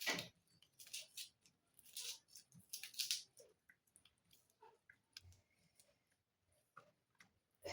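A few faint short clicks and scrapes in the first half, then near silence.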